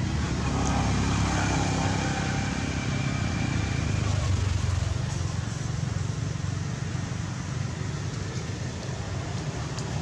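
Steady low outdoor rumble with faint voice-like calls during the first few seconds.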